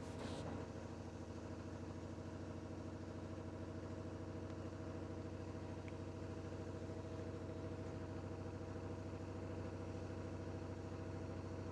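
Washing machine spinning at high speed to spin the water out of the laundry: a steady motor and drum hum.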